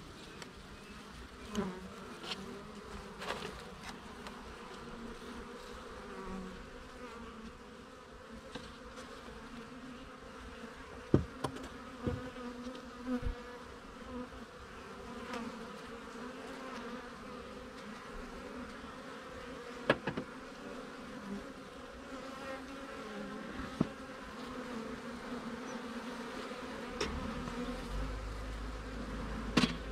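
Honey bee colony humming steadily in an opened hive. Several sharp knocks and clicks of the hive tool against the wooden frames cut through the hum, and a low rumble comes in near the end.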